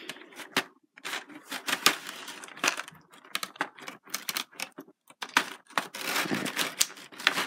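Thin clear plastic blister tray crinkling and clicking as it is handled and flexed, in quick, irregular crackles.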